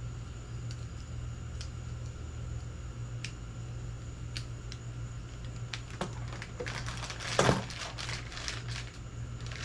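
Scattered small clicks and taps, then plastic packaging crinkling and rustling as small accessories are handled, with one louder rustle past the middle. A steady low hum runs underneath.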